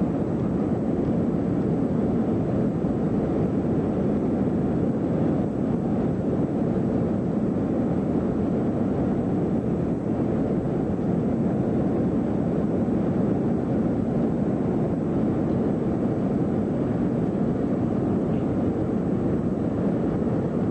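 Steady cabin noise of a jet airliner in flight, the engines and rushing air heard from a window seat inside the cabin, even and unbroken.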